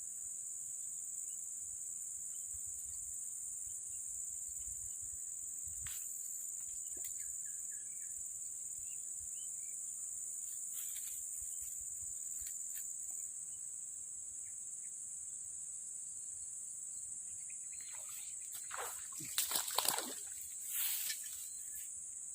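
Steady high-pitched insect chirring, crickets, with a burst of water splashing and sloshing near the end.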